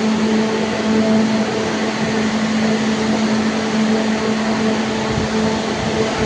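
Kjellberg PA-S70 W plasma cutting machine running: a steady low hum with a few fainter overtones over an even rush of fan and air noise.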